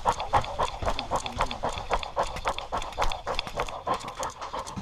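A dog panting rapidly, close up at a collar-mounted camera, several quick breaths a second.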